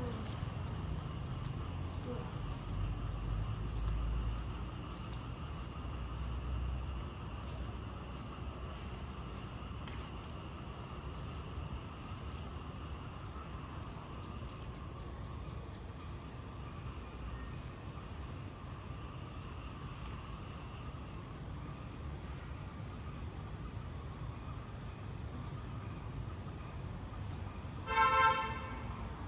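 Crickets chirring steadily at a high pitch over a low rumble of distant traffic. Near the end there is one short vehicle horn toot, the loudest sound.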